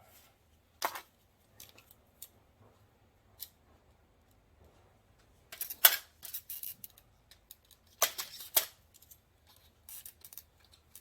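Clamps and brackets of a grow-light fixture being handled and snapped into place: scattered clicks and short clattering runs, busiest a little past halfway and again about eight seconds in.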